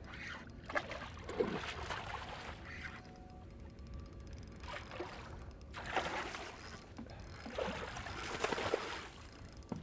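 Hooked speckled trout splashing at the water's surface beside the boat, in a few short bursts, the loudest near the end.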